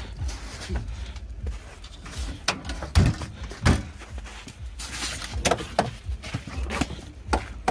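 Handling of a car: a series of knocks and clicks from hands on the bodywork and door handle, and a car door pulled open near the end, with footsteps on wet slush. Under it a steady low wind rumble on the microphone.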